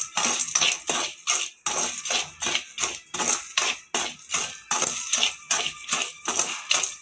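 Steel skimmer scraping hot salt and chickpeas around a steel kadai in quick rhythmic strokes, about three a second, with a gritty shaker-like rasp. This is the stirring of chickpeas being dry-roasted in salt.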